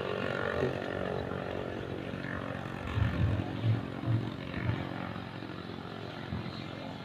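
Small engine running steadily at an even pitch, with a few low dull thumps about halfway through.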